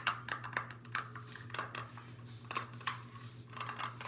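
Fingernails tapping and clicking on a small dark container, many quick irregular taps, over a steady low hum.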